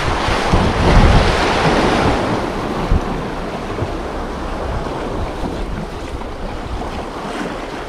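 Sea waves washing on the shore, with wind buffeting the microphone; the wash is loudest in the first two seconds, then eases to a steadier hiss.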